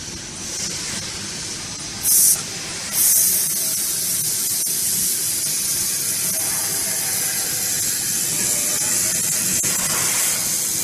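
Handheld fiber laser welding gun hissing from its nozzle: a short burst about two seconds in, then from about three seconds a steady, loud, high hiss that carries on, the shielding gas flowing while it welds.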